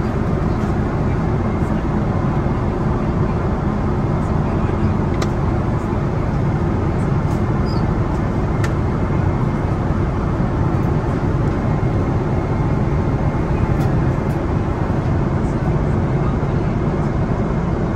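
Steady low roar inside the cabin of a Boeing 777-300ER airliner in flight: engine and airflow noise, with a few faint clicks.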